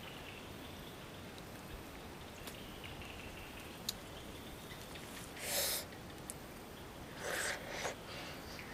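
Wild fruit being picked by hand from a leafy branch: faint rustling and a small click, then a short breathy rustle a little past halfway, and two more near the end as the fruit goes to the mouth to be eaten.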